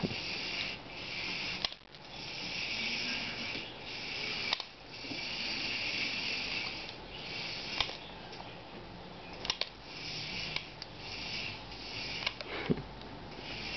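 Small electric motor of a remote-controlled toy mouse whirring in stretches of a second or two, stopping and starting as it is driven, with a few light clicks and taps in between.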